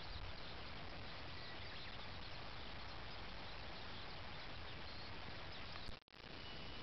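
Steady, even hiss of open-air rural ambience with no distinct event in it; the sound drops out for an instant about six seconds in.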